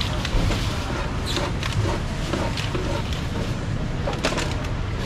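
Steady low rumble of background noise, with a few short sharp knocks and clinks of fruit-cutting work at a stall counter.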